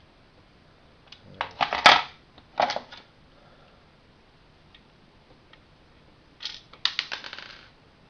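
Plastic clicks and clatter of a Commodore 1530 Datasette's case and small parts being handled and taken apart, in three short bursts: about a second in, just before three seconds, and again about six and a half seconds in.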